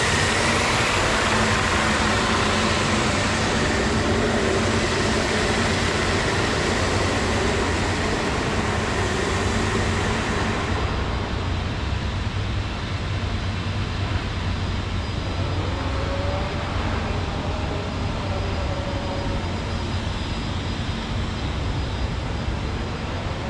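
Tennant 5700 36-volt battery walk-behind floor scrubber running as it scrubs a wet concrete floor, a steady electric machine whine and hiss. The high hiss drops off about halfway through, and the lower running noise continues.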